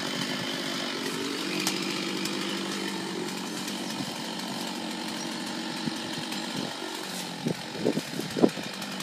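Stihl chainsaw running steadily as it cuts through the sweet chestnut's main stem, with a few sharp knocks near the end.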